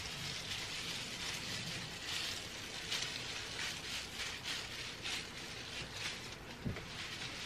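Hands squeezing and rubbing wet, dye-soaked hair: an irregular, wet rustling with many small crackles as the thick plant-based dye is worked through the strands.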